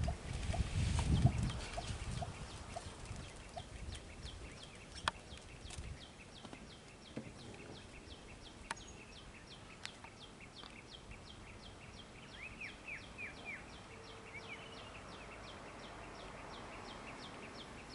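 Roadside forest ambience of birds calling: a high chirp repeated evenly about three to four times a second, with a few other short bird calls. A low rumble fades over the first couple of seconds.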